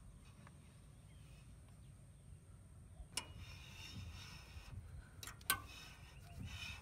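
Hand reamer cutting through the center-pin bushings in a VW bus front beam: faint rasping scrapes from about three seconds in, with a few sharp clicks, the loudest about five and a half seconds in.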